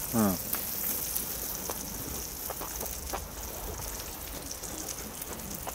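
Thin-sliced pork belly and scallops sizzling in hot fat: a steady hiss with scattered small crackles and pops.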